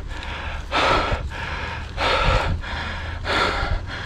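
Mountain biker breathing hard: deep, loud breaths about every second and a half. He is out of breath after a steep climb, his heart rate near its maximum.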